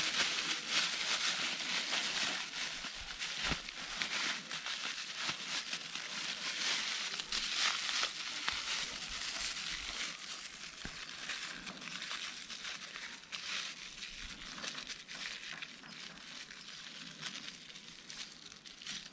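Close, dense crinkling and rustling made of many small crackles, getting quieter over the last few seconds.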